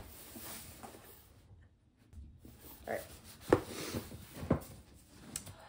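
Cardboard subscription box being handled: faint rustling, then a few soft knocks about three and a half and four and a half seconds in.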